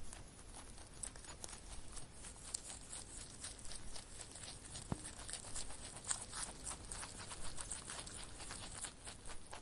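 A rabbit making dense, rapid small crunching and rustling clicks, with no calls.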